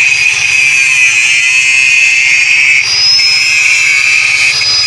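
Angle grinder cutting into the steel body of a combine harvester: a steady, loud, high-pitched whine that dips briefly about three seconds in and then picks up again.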